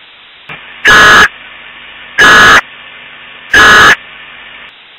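Three short, loud bursts of Emergency Alert System digital data tones (SAME warbling two-tone data), evenly spaced about a second and a half apart, over faint background hiss.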